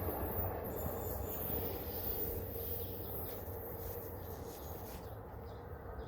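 Train rumbling low and steady, slowly fading as it moves away.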